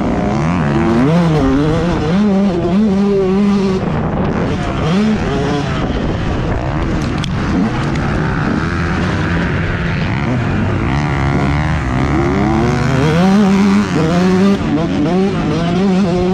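Motocross bike engine being ridden hard, its pitch climbing and dropping again and again as the throttle is opened and closed and the gears change. Wind rush on the bike-mounted camera runs underneath.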